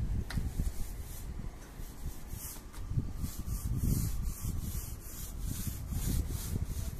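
Paint roller on a long handle rolling floor paint over terrace tiles: a steady rubbing with repeated back-and-forth strokes.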